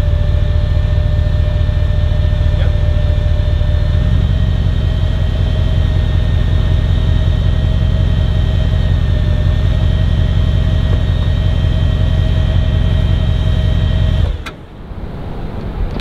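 Vehicle engine idling steadily, a heavy low rumble with a constant high whine over it; it stops abruptly about fourteen seconds in.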